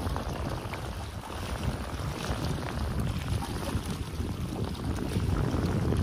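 Small sea waves washing and splashing against concrete breakwater blocks, mixed with wind buffeting the microphone as a low, uneven rumble.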